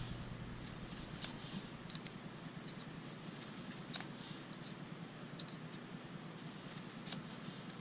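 Faint, scattered clicks and light scrapes of a pocket-knife blade being drawn through the pull-through notch of a Victorinox pocket knife sharpener, the blade catching on the sharpener's small plastic guide as it passes.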